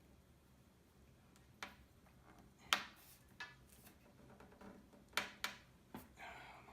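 Small metal clicks and taps of a screwdriver working a tight bottom-case screw on a late 2013 MacBook Pro, about six scattered clicks with the loudest a little under 3 s in. A short soft rustle follows near the end.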